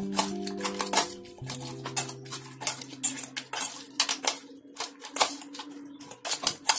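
Metal spoon clinking and scraping against a stainless steel pot, with repeated irregular clinks, while stirring spices into crab pieces. Faint background music runs underneath.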